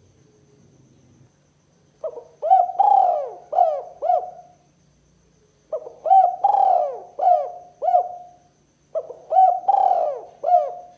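Spotted dove cooing: three phrases of several cooing notes each, a second or so apart.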